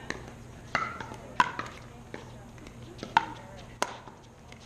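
Pickleball doubles rally: hard paddles popping against a hollow plastic pickleball, about five sharp, ringing pops at uneven intervals.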